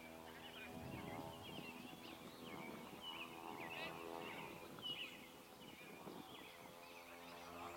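Faint birdsong: songbirds giving many short, quick chirps, over a low steady hum.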